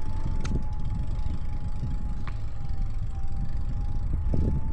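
E-bike riding along a paved path: the electric motor's steady whine, drifting slightly in pitch, over wind rumble on the microphone, with two faint clicks early and about two seconds in.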